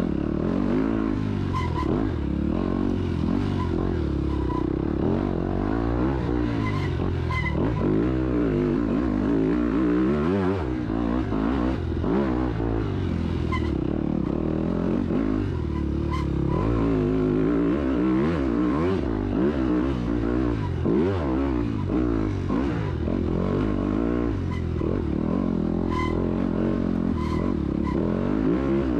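250 cc dirt bike engine revving up and down continually under changing throttle, pitch rising and falling every second or two, with scattered clattering knocks from the bike over rough ground.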